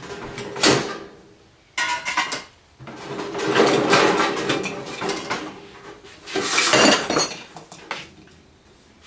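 Thin sheet-metal casing pieces clattering and scraping as they are handled, in four bouts, the loudest about two-thirds of a second in and near seven seconds in, with a longer scrape in the middle.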